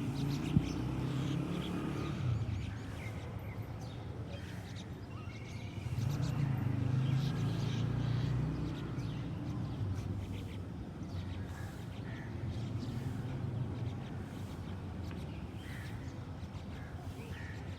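Birds calling faintly over a low, steady rumble that swells twice, with one sharp click about half a second in.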